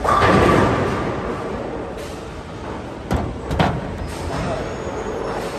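Bowling alley noise: a loud rolling rumble and crash at the start that dies away over about a second, then two sharp knocks a little past halfway, over the steady din of balls and pins.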